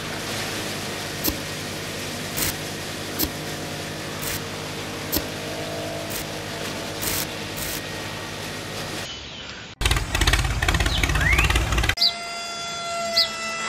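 Small electric motor of a miniature model conveyor belt loader running with a steady hum, with a sharp click every second or so. About ten seconds in a louder rattling noise lasts a couple of seconds, then a different small motor hums steadily.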